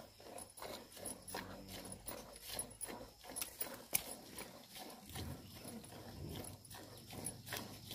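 Milk squirting from a cow's teat into a steel pail during hand milking, in steady strokes at about three a second.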